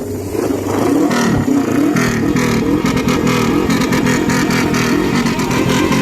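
Motorcycle engine revving, its pitch rising and falling repeatedly, getting louder about half a second in.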